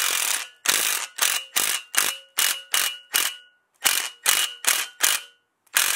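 An electric tool run in short, sharp pulses, about three a second with two brief pauses, each leaving a faint metallic ring, as it turns the bolt of a valve spring compressor pressing down a valve spring on a Hemi V8 cylinder head. A steadier run of the tool stops about half a second in.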